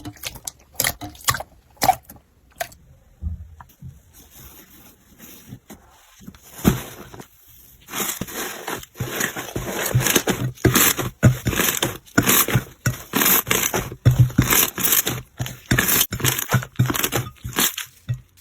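Slime being squished and poked by hand, making sticky crackles and pops. The pops are sparse at first, then come thick and fast from about eight seconds in.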